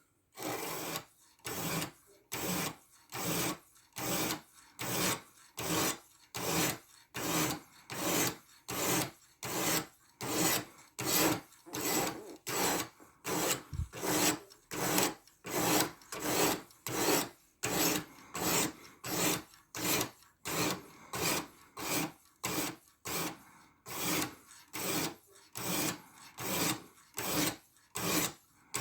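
A 14C28N steel knife blade drawn back and forth over a coarse 120-grit diamond stone on a guided sharpener. The steady rasping strokes come about three every two seconds as the edge bevel is ground in.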